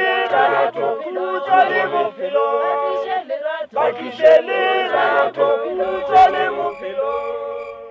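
A cappella choir singing, phrase after phrase with short breaks, the song fading out near the end.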